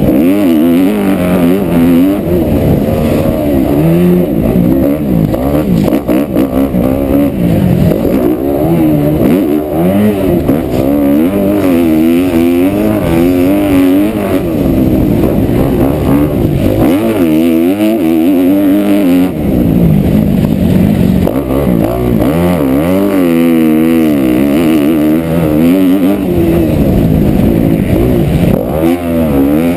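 Kawasaki KX250F's four-stroke single-cylinder engine heard on board, loud, its revs climbing and dropping over and over as the throttle is worked through the corners and straights of a dirt motocross track.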